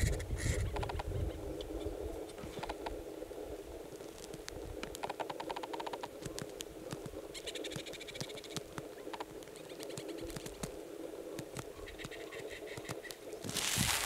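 Dry grass rustling and crackling in short bursts as a Gunnison's prairie dog bites off and pulls up mouthfuls for nesting material, with a louder burst of rustling near the end.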